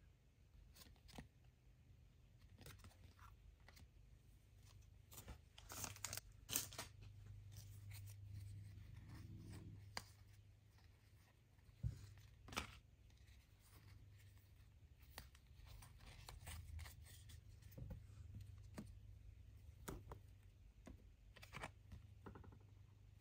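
Faint rustling and short clicks of trading cards being handled, flipped and slid against one another, over a steady low hum.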